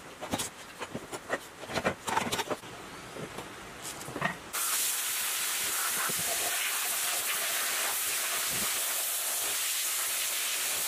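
Pliers clicking and scraping on the wire leads of an electric motor stator, then, about four and a half seconds in, a sandblaster starts and runs with a steady loud hiss of air and grit, blasting rust off metal parts.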